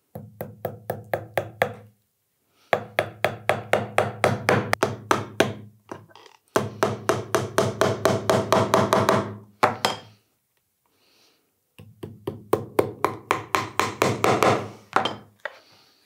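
Hammer tapping upholstery nails through leather into a wooden block, in four quick runs of rapid light blows, about five a second, with short pauses between the runs.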